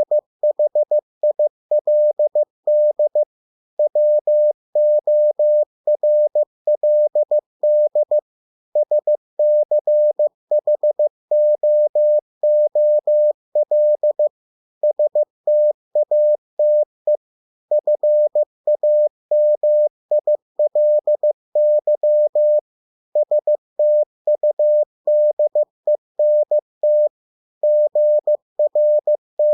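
Morse code at 15 words per minute: a single steady beep tone keyed on and off in short dots and longer dashes. Brief silences every second or few mark the gaps between English words.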